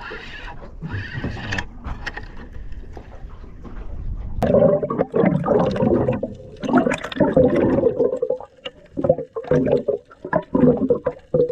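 Water sloshing and gurgling, heard through a camera dipped just under and at the water's surface. It gets much louder and comes in uneven surges from about four seconds in.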